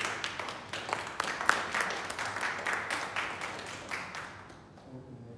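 Audience applauding, starting suddenly and dying away after about four and a half seconds.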